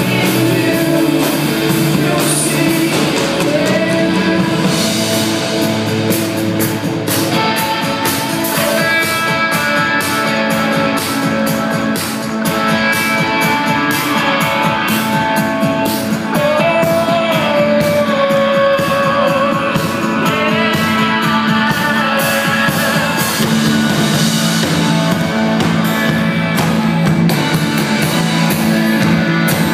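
A rock band playing live: electric guitars, bass and drums, with singing over the top.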